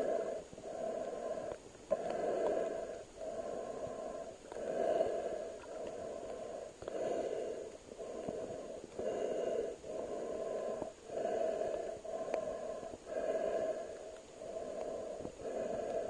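A swimmer breathing through a mouthpiece while underwater: steady, alternating inhales and exhales of about a second each, one after another with short pauses.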